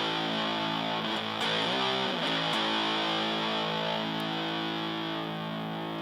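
Fender Stratocaster played through a Super Power-Fuzz, a modded Big Muff fuzz pedal on its silicon diode setting, into a Fender Blues Junior amp. Thick, sustained fuzz chords are restruck about a second and a half in, with a brief wavering of pitch just after. The chord then rings on until it stops near the end.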